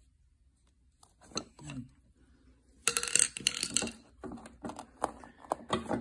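Metal clinks and clatter of a screwdriver knocking against the metal wheel rim of an electric scooter while its tyre is worked off. A few clicks after about a second, a dense ringing clatter about three seconds in, then a run of sharp clicks.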